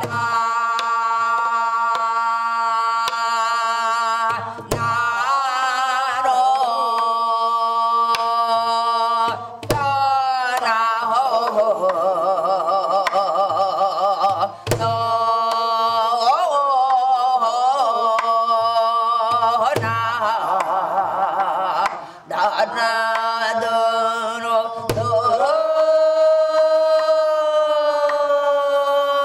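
Korean gueum, a wordless traditional vocal line for song-dance-music, sung in long held notes with a deep, slow vibrato over occasional low drum strokes.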